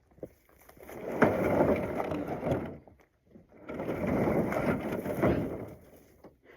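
A greenhouse roof section being dragged over rough ground, in two long scraping pulls with a short pause between them.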